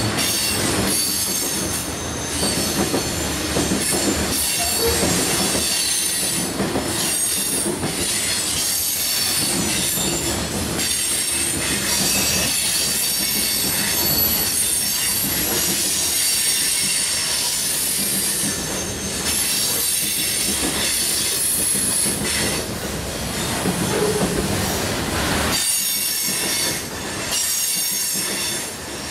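Train rolling past with its steel wheels squealing on the rail: a steady high-pitched squeal over the rumble and clatter of the cars.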